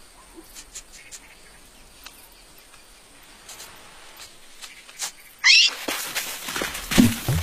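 A quiet stretch with a few faint clicks, then about five and a half seconds in a sudden loud animal cry that rises in pitch, followed by loud noisy sound with sharp clicks.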